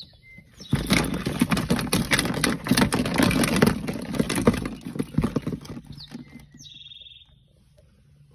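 Sailfin dragon's claws scrabbling and scratching on a plastic tub and plastic Easter eggs, a dense clatter of clicks and scrapes that starts about a second in and dies away after about five seconds. A bird chirps briefly near the end.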